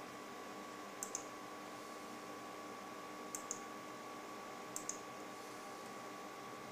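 Three computer mouse clicks about a second and a half apart, each a quick press-and-release pair, over a steady faint hum with a thin high tone.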